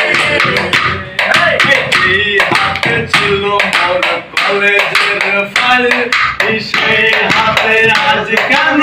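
Singing voices with improvised percussion: bottles tapped rhythmically against a concrete floor, a steady run of sharp taps under the melody.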